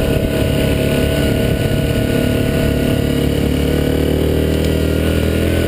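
Yamaha Grizzly 700 SE ATV's single-cylinder engine running steadily, loud and close, as the quad rides along a dirt trail.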